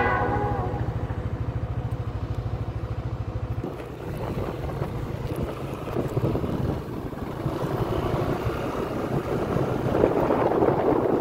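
Wind buffeting the microphone over a vehicle engine's low hum. The hum stops abruptly about four seconds in, and the wind noise grows louder near the end.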